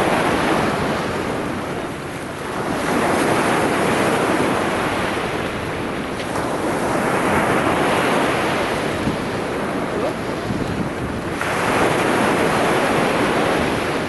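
Small sea waves breaking and washing up the shore, a fresh surge of surf every three to five seconds, with wind on the microphone.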